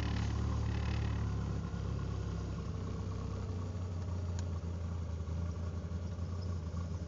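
Ford Mustang engine idling just after its first start on a newly installed Megasquirt-based aftermarket ECU, heard from inside the cabin and running at just under 1,000 rpm. The idle eases slightly quieter over the first couple of seconds and then holds steady.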